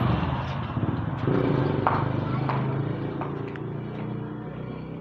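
A motor engine running with a steady low hum that slowly fades away, with a few light clicks and knocks over it.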